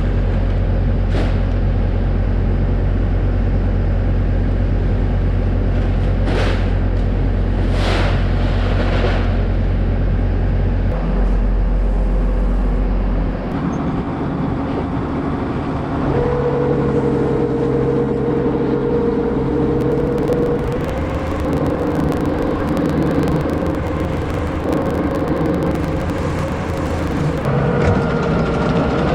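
A farm vehicle's engine running steadily. A few knocks come in the first half, the low hum changes about halfway through, and a steady higher whine joins it soon after.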